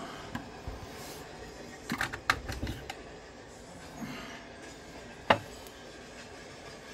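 Mineral specimens clicking and knocking against a hard shelf and each other as they are set down and picked up: a quick run of sharp clicks about two seconds in, and one sharp knock, the loudest, a little after five seconds. A low steady hum runs underneath.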